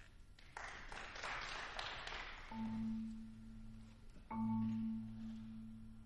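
Quiet passage of ensemble music: a marimba sustains a low rolled note, entering about two and a half seconds in and struck again a little after four seconds. Before it comes a soft hissing wash of sound.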